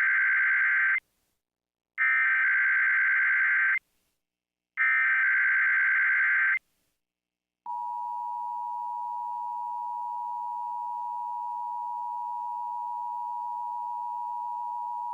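Emergency Alert System SAME header: three harsh, buzzy digital data bursts about a second apart, the first already under way. About 7.5 seconds in, the steady two-tone EAS attention signal starts and holds, opening a required monthly test alert.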